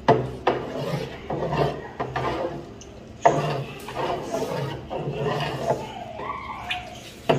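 Metal tool being worked through soft, freshly set cheese curd in a tub, breaking it up: irregular scraping, rubbing and swishing strokes, with a sharper scrape a little after three seconds and another near the end.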